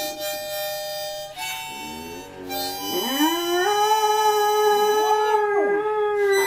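Harmonica playing held chords while a dog howls along with it. About three seconds in the dog's howl slides up into one long, wavering howl, louder than the harmonica.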